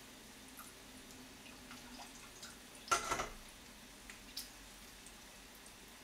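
Water dripping into a sink as blanched spinach is squeezed by hand to press out its water, with scattered small drips and one louder splash about three seconds in.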